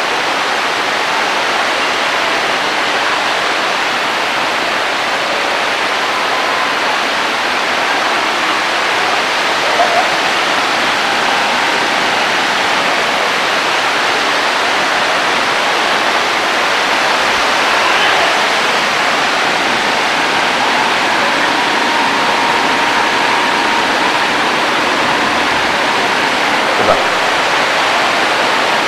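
A loud, steady rushing hiss, with a man's voice faint beneath it.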